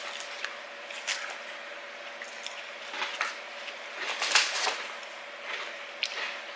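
A person chewing a mouthful of salad close to the microphone: irregular wet crunches and squishes, the loudest about four seconds in.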